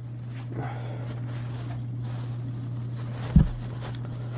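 A man breathing quietly between sneezes over a steady low hum, with one sharp thump about three and a half seconds in.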